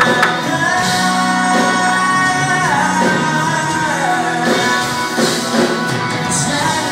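Live country band playing a song in a large hall, heard from the crowd: the singer holds long notes that step down in pitch twice, over electric guitars, bass, keyboard and drums.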